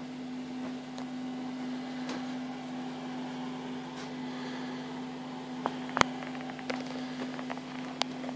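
Steady electrical hum of a reef aquarium's pumps running, over a soft hiss of moving water. A few sharp clicks, the loudest about six seconds in and another near the end.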